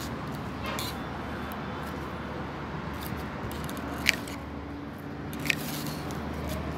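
Hand pruning shears snipping through woody Arabian jasmine (mogra) stems: two sharp snips, about four seconds in and again a second and a half later, over a steady low background hum.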